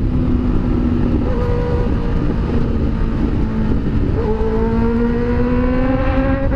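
Honda CB 600F Hornet's inline-four engine running at steady cruising revs under the rider, over a low rush of wind and road noise. About four seconds in the note briefly breaks, then climbs slowly in pitch as the bike pulls on.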